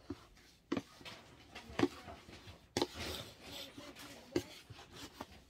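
A plastic scoop stirring and scraping dry laundry powder in a plastic bucket, with about five sharp knocks of the scoop against the bucket.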